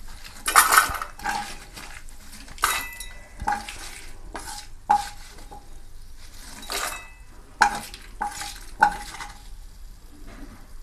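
Wooden spatula scraping and knocking against a kadai and a steel bowl, about a dozen irregular strokes as fried dried red chillies and curry leaves are scooped into the bowl; a couple of knocks make the steel bowl ring briefly. Oil sizzles faintly in the pan between strokes.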